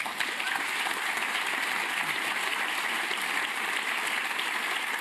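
A large audience applauding, steady dense clapping.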